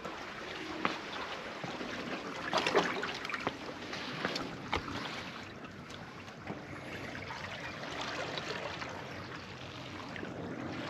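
Seawater lapping and trickling among concrete breakwater blocks, a steady wash with a few light knocks mixed in.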